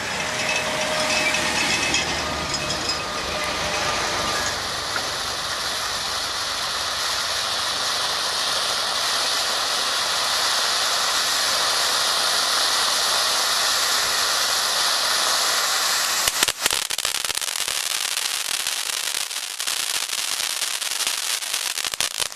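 Firework cone fountain (Watt Fire Goddess) burning with a steady, loud hiss of spraying sparks. About three-quarters of the way through, sharp crackling pops break in as it throws out a spray of crackling sparks.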